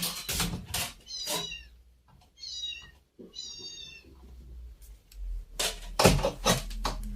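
Cat meowing: three short, high, drawn-out calls in the first four seconds, with some louder knocks and rustling near the end.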